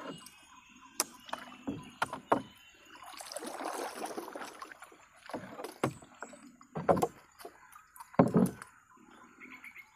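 Scattered sharp knocks against a small boat's hull, with a longer rustling, splashing stretch a few seconds in, as a wet gill net is handled and hauled aboard and fish are worked free of it.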